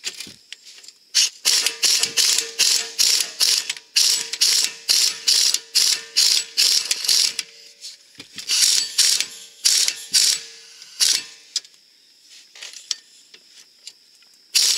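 Hand ratchet clicking in repeated quick strokes, about two a second, as a socket tightens the bolt of a newly fitted rear lower control arm. The strokes pause briefly near the middle, stop about three-quarters of the way through, and one more burst comes at the end.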